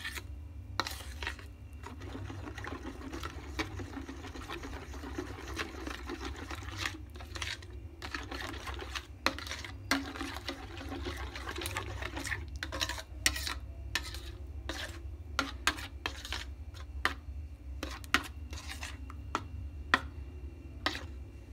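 A spoon stirring thick instant uji porridge in a bowl, with irregular clicks and scrapes of the spoon against the bowl.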